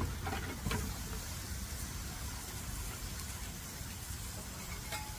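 Crab cakes sizzling on a flat-top griddle, a steady hiss, with a few light knocks in the first second and another near the end.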